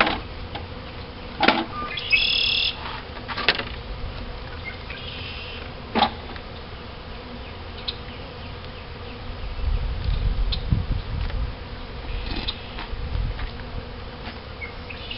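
Honey bees from a freshly hived package buzzing around a wooden hive in a steady hum. A few sharp wooden knocks and a brief high squeak come as the hive top feeder is set onto the box.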